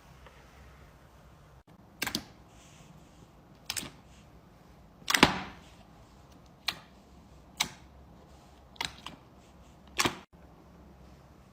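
Slime being pressed and worked by hand, giving about eight sharp clicking pops at uneven intervals, the loudest and longest about five seconds in.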